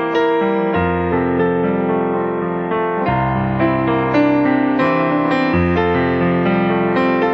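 Background music: a gentle piano or electric-piano piece playing sustained chords and a melody.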